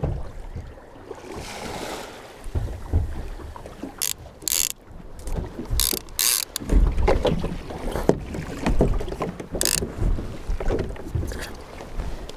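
Wind buffeting the microphone and sea water slapping around a small boat, with several short hissing splashes of spray. Mixed in are the knocks and clicks of a multiplier sea-fishing reel being handled on a boat rod.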